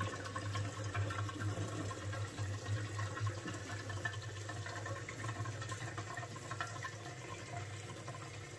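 Gasoline pouring steadily from a plastic gas can's spout into the plastic fuel tank of a Craftsman LT3000 riding mower, as the last of the can drains out.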